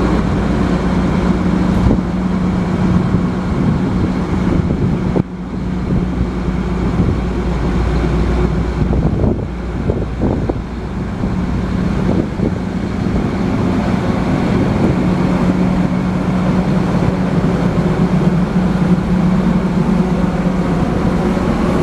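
Massey Ferguson 9280AL combine harvester running, a loud, steady engine and machinery drone with a constant low hum that dips briefly about five seconds in.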